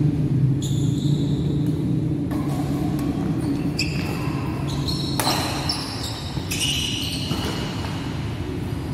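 Badminton doubles rally: sharp racket strikes on the shuttlecock and short high squeaks of shoes on the court, at irregular moments over a steady low hum of the hall.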